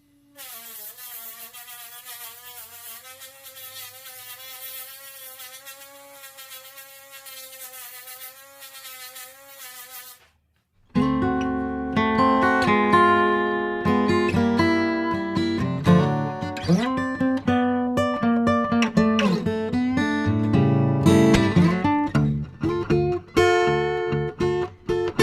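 A wavering, buzzy whistle for about ten seconds: hearing aid acoustic feedback, amplified sound leaking out around an ill-fitting shell and being picked up again by the aid's microphone, not a fault. After a brief gap, acoustic guitar music starts.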